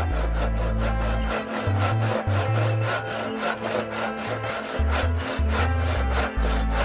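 Hand saw cutting through wood in quick, even strokes, about three a second, over background music with a deep bass line.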